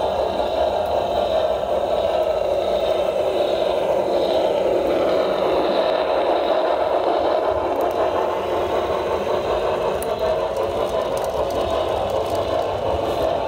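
HO scale model trains, steam locomotives and coal hopper cars, rolling along the track with a steady rattling clatter of small metal wheels on the rails. A few sharper clicks come near the end as the hoppers pass close by.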